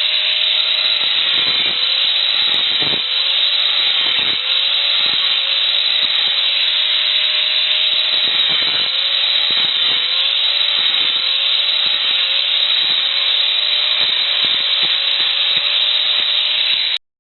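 Angle grinder with a thin metal-cutting disc cutting a row of notches across the ends of 12 mm steel rods. The motor's whine sags each time the disc bites into the steel and recovers between cuts, a dozen or so times, then cuts off suddenly near the end.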